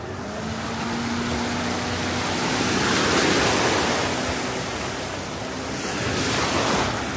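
Ocean surf washing in, swelling loudest about three seconds in and again near the end.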